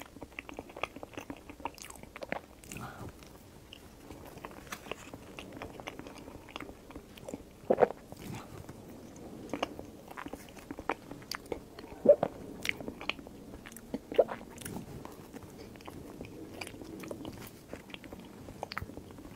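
Close-miked chewing and mouth sounds of someone eating soft green cream cake: many small wet clicks and smacks, with a few louder clicks about 8, 12 and 14 seconds in.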